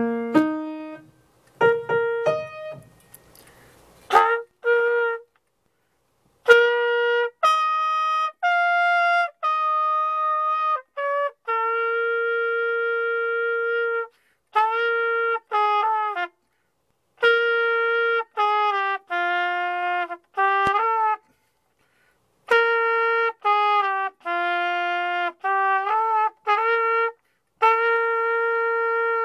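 A few piano notes at the start, then a trumpet played in phrases of held, steady notes that keep returning to the same middle-register note, with short pauses between the phrases.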